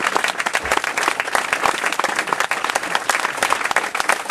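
Audience applauding, many hands clapping fast and steadily.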